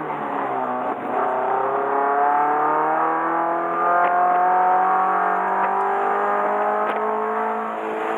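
Subaru BRZ's flat-four engine accelerating under load, its pitch rising slowly and steadily for several seconds as it pulls up through the revs in one gear.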